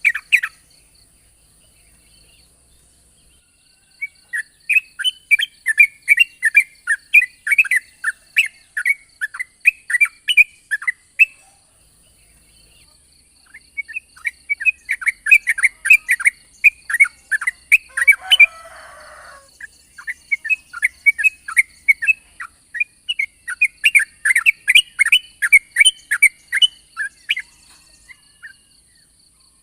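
Yellow-vented bulbul singing long, rapid runs of chirped notes. There are two long bouts, one about 4 to 11 seconds in and one from about 13 to 27 seconds, with a faint steady high whine underneath.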